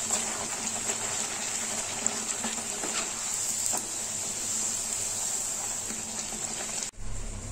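Bhatura dough deep-frying in hot oil in a kadhai, sizzling steadily with small crackles while it is pressed down with a slotted spoon. The sizzle cuts off abruptly near the end.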